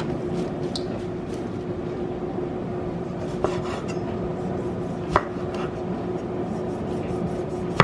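Chef's knife slicing cherry tomatoes on a wooden cutting board, with a few sharp knocks of the blade on the board, the loudest right at the end. A steady hum and hiss runs underneath.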